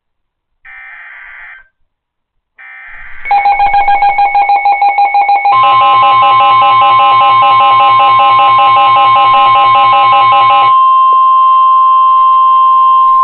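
NOAA Weather Radio emergency alert signal: two short bursts of SAME digital header squawk, then a loud rapidly pulsing alert tone that thickens into a dense chord of tones at about 5 seconds, leaving the steady 1050 Hz warning alarm tone alone after about 11 seconds. It signals a new severe weather warning being broadcast.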